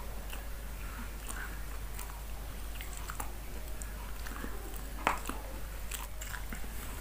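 A person eating fried chicken by hand: scattered small clicks and mouth sounds as meat is picked off the bone, bitten and chewed, with one sharper click about five seconds in. A steady low hum runs underneath.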